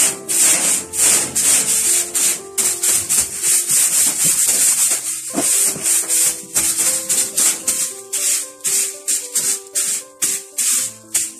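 Background music: a steady shaker-like beat over a simple stepping melody.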